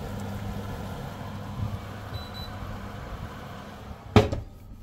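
Steady low hum of the running oven and lit gas hob, with one sharp clunk about four seconds in as the oven is opened and the roasting tray taken out.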